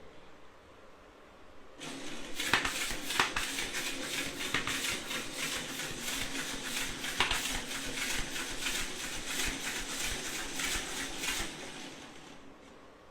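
3D-printed plastic single-acting air engine running on air from a balloon pump: a rapid plastic clatter over a hiss of air, starting suddenly about two seconds in and stopping near the end.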